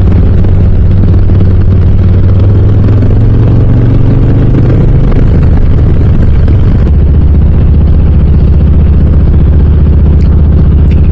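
Harley-Davidson Low Rider S's V-twin running through Cobra RPT slip-on mufflers on the move: a loud, steady low exhaust drone with wind rush over it. The engine note shifts about halfway through, and the wind noise eases off around then.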